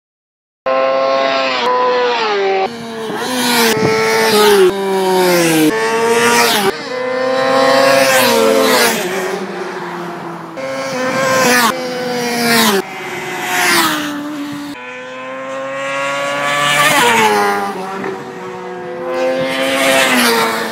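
Sportbikes passing at speed one after another, each engine note dropping in pitch as the bike goes by. The passes are spliced together with abrupt cuts, a new one starting every one to four seconds.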